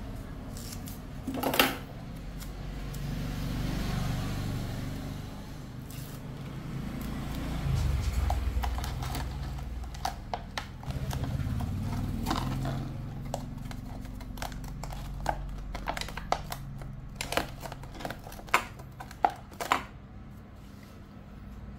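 Hands handling a clear plastic cup, tape and scissors: scattered clicks, taps and crinkles of plastic and tape, more frequent in the second half, over a low background rumble that swells a few times.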